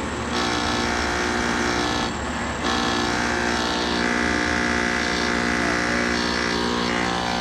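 Air conditioner running with a steady, tone-filled mechanical drone, the strange noise that the technician suspects comes from the compressor. It dips briefly twice, near the start and about two seconds in.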